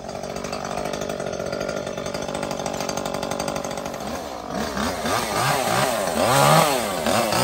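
Chainsaw engine running at a steady speed, then from about four and a half seconds in revving up and down repeatedly, about once a second.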